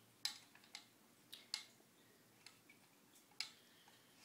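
A few faint, sharp clicks at irregular intervals, about six in four seconds, from a staple gun being handled.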